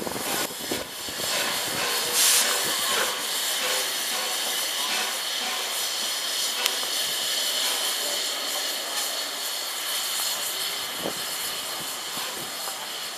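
Steam hissing steadily from the Peppercorn A1 Pacific steam locomotive 60163 Tornado, with a brief louder rush of steam about two seconds in.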